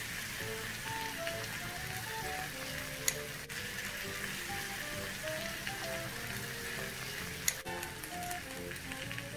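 Food sizzling on a hot cast-iron sizzler plate as sauce is spooned over it, a steady hiss. Two sharp clicks come about three seconds in and near the end.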